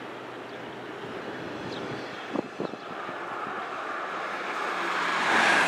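Freight train rolling past: a steady rumble and hiss of wheels on rail with two short knocks about two and a half seconds in, swelling into a louder whoosh near the end.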